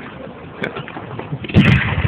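Firework shell bursting with one sudden loud boom about one and a half seconds in, after a few faint pops.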